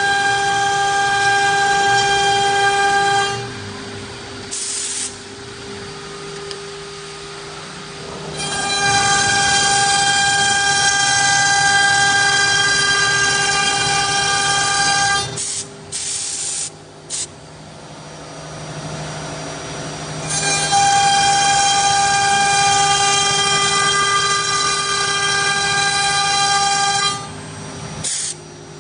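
CA1325 CNC router's air-cooled spindle running with a steady whine while the bit cuts grooves into particleboard. Three loud cutting passes, each several seconds long, add a shrill ringing whine. Between them are quieter stretches where only the spindle and machine run.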